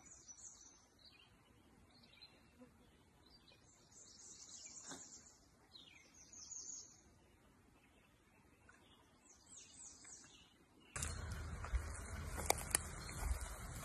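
Faint wild birdsong: a few short, high chirping phrases, from about four to ten seconds in. About eleven seconds in, louder footsteps start rustling and crackling through dry leaf litter.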